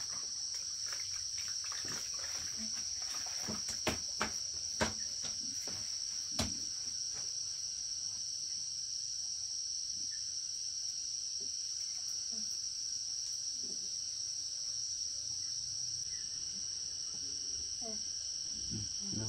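Steady, high-pitched chorus of insects. A few sharp knocks sound in the first seven seconds.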